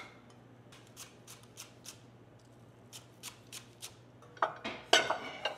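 Chef's knife chopping green onions on a thick wooden butcher-block board: about three sharp knife strokes a second in two short runs, then a louder, quicker flurry of chopping near the end.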